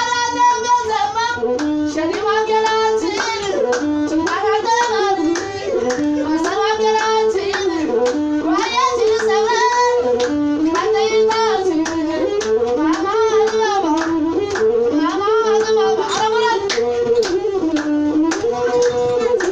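Ethiopian azmari music: a singer with masinqo, the single-string bowed fiddle, playing a short wavering melodic phrase repeated about every two seconds, over steady hand-clapping.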